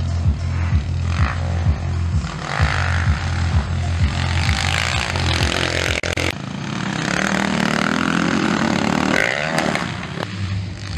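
Motocross dirt bike engines running hard and revving. About six seconds in the sound changes abruptly, and an engine rises and falls in pitch.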